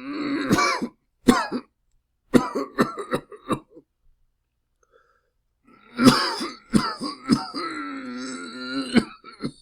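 A person coughing in bouts, mixed with throat clearing. There is a rough cough at the start, a single sharp cough about a second in, and a quick string of short coughs between about two and four seconds. After a pause comes a longer coughing fit with a drawn-out, voiced throat-clearing stretch, ending in one hard cough.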